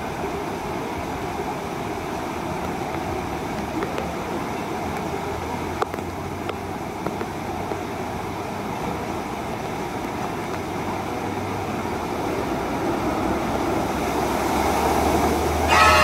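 Steady hiss of water spraying from a water-play structure, swelling over the last few seconds into a loud cascade as the big tipping bucket dumps its water onto the pool near the end.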